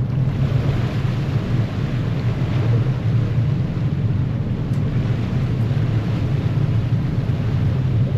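Harbour ferry's engines running with a steady low drone, mixed with the wash of the propeller churning the water astern.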